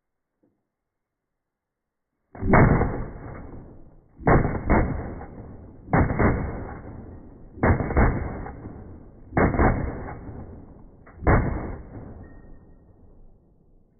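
Rifle shots from AR-15-type rifles: six heavy, dull booms about two seconds apart, a couple of them with a quick second shot, each trailing off in a long rumble.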